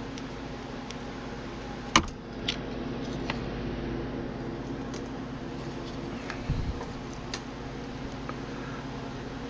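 Small hand tools clicking and tapping on a workbench: one sharp click about two seconds in, a few lighter clicks and a dull knock later, over a steady hum.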